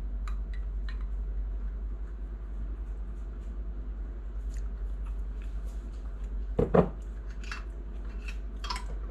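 A metal spoon clinking lightly against a glass canning jar of pepper jelly: a few scattered ticks near the start and more near the end, with one louder short sound about two-thirds of the way through, over a steady low hum.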